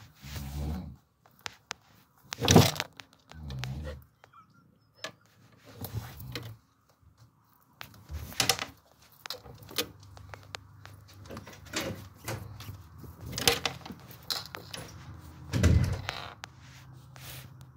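Scattered knocks, taps and rustling, with the loudest a sharp knock about two and a half seconds in and a few more thumps later.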